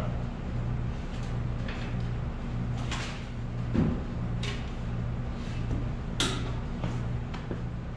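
Boots scuffing and knocking on a metal grate step and the tractor's footboard as a man climbs up and back down, with a few short clunks, over a steady low hum.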